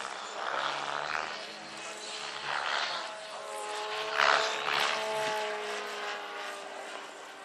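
Large electric scale model BO-105 helicopter in aerobatic flight. A steady drive whine runs under three loud swooshing surges of rotor-blade noise as it manoeuvres, the loudest about four seconds in.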